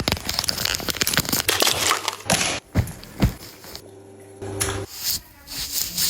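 Close-miked ASMR handling sounds: dense crinkling and crackling, with two sharp clicks about halfway through and a quieter stretch after them.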